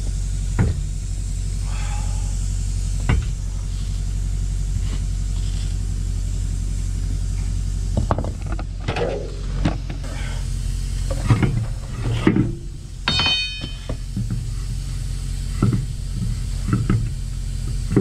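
A steady low engine hum runs throughout, with scattered knocks and clunks as a heavy truck wheel is handled and worked onto the hub, several in a cluster around the middle, and a brief squeak a little later.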